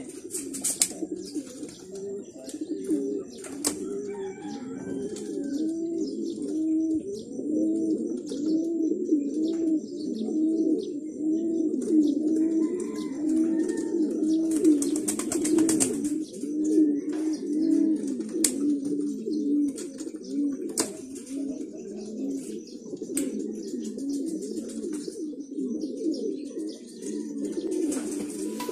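A loft full of racing pigeons cooing together, a steady chorus of many low, overlapping coos, broken by a few short rustling bursts, the longest around the middle.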